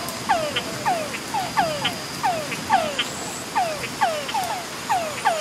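A chorus of frogs calling, each call a short note that glides downward in pitch. The calls repeat and overlap at about three a second, over a faint steady high whine.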